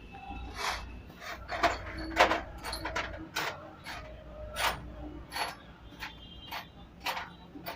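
Irregular metal clinks and knocks, about a dozen, some ringing briefly, from tools and metal parts being handled during diesel generator repair work.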